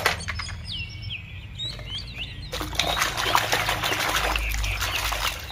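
A hand squelching and churning through thick, wet red mud, a dense sloppy crackle that starts about halfway in. A few bird chirps come before it.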